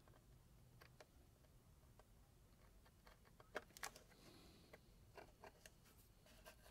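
Faint ticks and light scrapes of a hobby knife blade cutting Tamiya masking tape on the model, with two sharper clicks a little past the middle.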